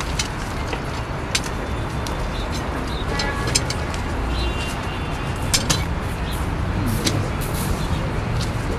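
Outdoor city street ambience: a steady low traffic rumble, with a few sharp clicks and faint voices in the background.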